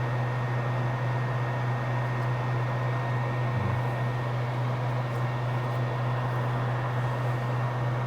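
Steady low-pitched machine hum with an even hiss, the constant drone of bench equipment or ventilation.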